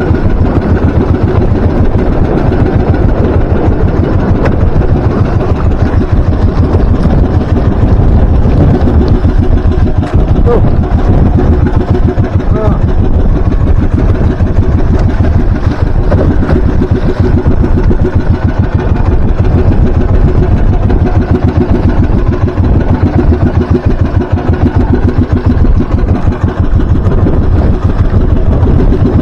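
Small outrigger fishing boat's engine running loudly and steadily while underway.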